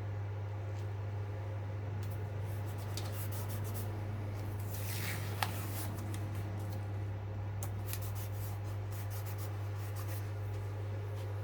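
Light rubbing, scraping and small clicks of hands working with parts, with a short scrape and one sharp click about five seconds in, over a steady low hum.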